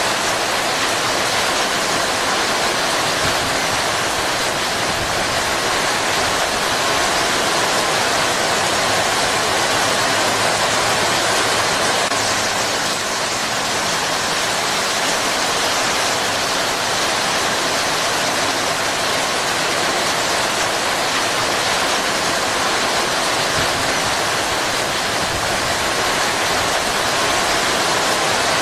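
Heavy rain falling steadily, a dense, even hiss that holds its level throughout.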